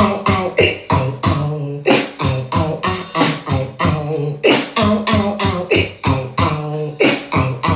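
Beatboxing: vocal percussion in an even rhythm of sharp hits, about three a second, with hummed pitched notes held between them.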